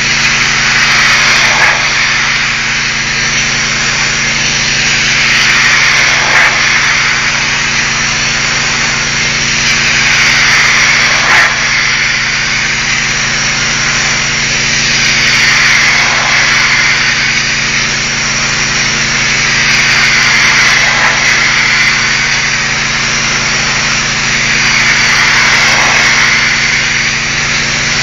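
Pressure washer jet spraying onto a brick wall: a loud steady hiss that swells and fades about every five seconds as the wand sweeps across the wall, over the steady hum of the pressure washer's motor.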